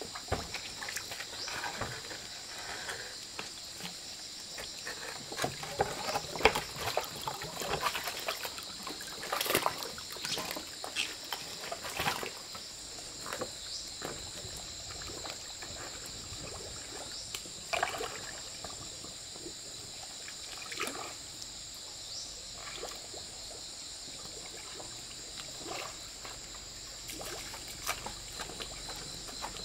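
Muddy water splashing and sloshing around a sunken bamboo-pole bridge as it is stepped on and shifted, with scattered knocks of the poles, busiest in the first half and once more past the middle. A steady high drone of insects runs underneath.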